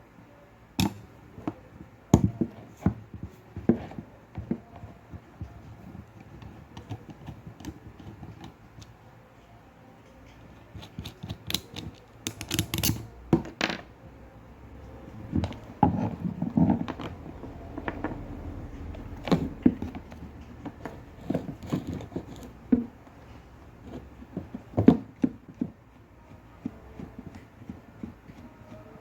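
Irregular clicks, taps and scrapes of small hard parts being handled, from an electric fan being taken apart, with busier runs of knocks in the middle.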